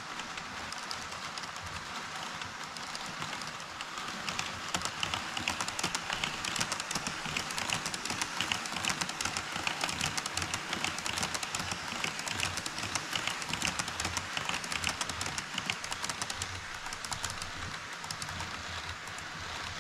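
HO-scale model train running on KATO Unitrack: a steady rolling hum with fast clicking of the wheels over the rail joints, growing louder about four seconds in and fading near the end.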